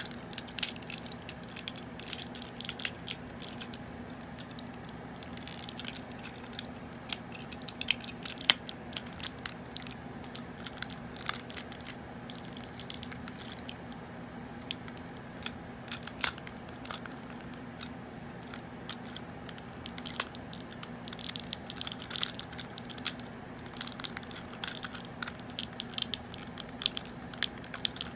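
Vintage Transformers G1 Hot Rod toy being transformed by hand: scattered small clicks and ticks of its parts being folded, swung and snapped into place, busier about eight seconds in and again near the end.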